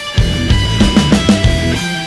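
Heavy rock background music with electric guitar and a driving drum beat.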